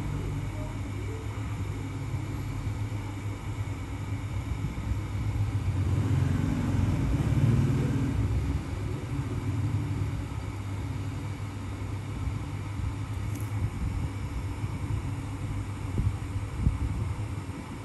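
Steady low mechanical rumble with a hum in it, swelling about six to eight seconds in.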